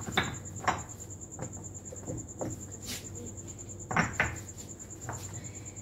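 Scattered short knocks and scrapes of hands working soil and objects in a terracotta planter, several over the few seconds, the loudest pair about four seconds in. A steady high cricket trill runs underneath.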